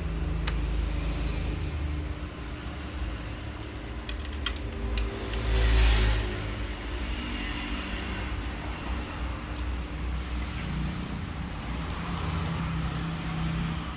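Low rumble of passing road traffic, swelling about six seconds in as a vehicle goes by, with a few faint clicks.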